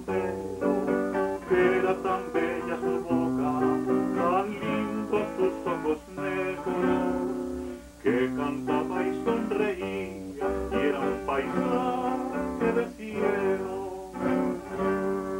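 A man singing in Spanish, accompanying himself on acoustic guitar with plucked chords.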